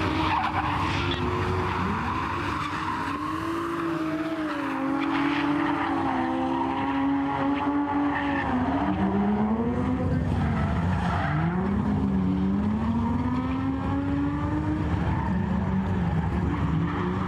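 Two drift cars sliding in tandem: their engines rev up and down over and over as the throttle is worked through the slide, over the steady noise of tyres skidding on the asphalt.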